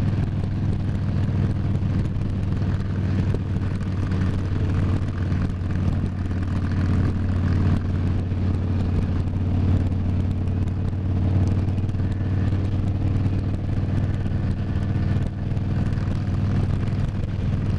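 Harley-Davidson touring motorcycle's V-twin engine running steadily at highway cruising speed, heard from the rider's seat.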